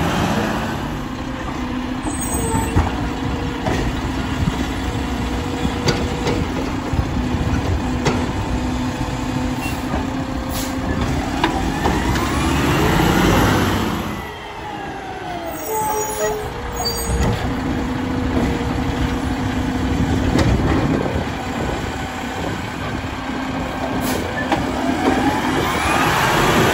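Mack LR garbage truck's diesel engine running with a steady hydraulic whine while the Labrie Automizer side-loader arm works the carts. Sharp air-brake hisses come now and then. Near the middle and again at the end, the engine note sweeps up and down as the truck pulls ahead.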